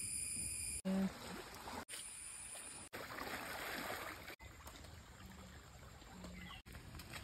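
Flowing stream water and splashing as feet wade through shallow muddy floodwater, cut into several short clips with abrupt breaks. A steady high tone opens the sequence, and a brief, loud low tone sounds about a second in.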